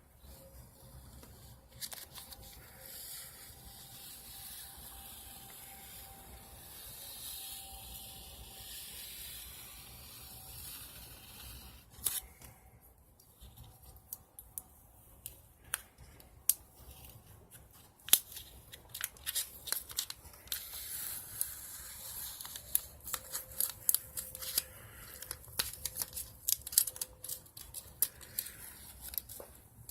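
Close-up hand work: soft rubbing and rustling, then a long run of quick, irregular sharp clicks and snips.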